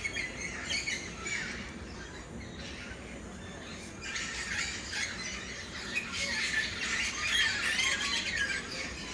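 Many birds calling and chattering at once, with squawks among the chirps. The chorus grows busier and louder about four seconds in, over a steady low rush.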